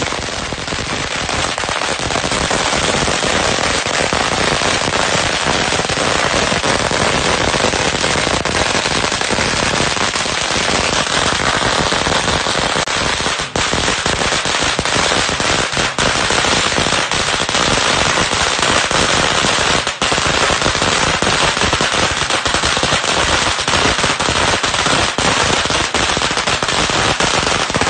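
A long string of firecrackers going off in one continuous rapid crackle of bangs, with a few brief breaks.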